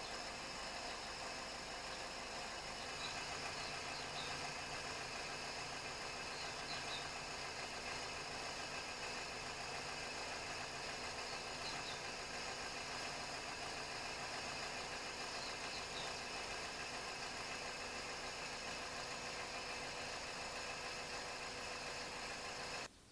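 Toyota Raum's four-cylinder petrol engine idling steadily, recorded to compare its sound on fresh 5W-30 oil; the sound cuts off abruptly near the end.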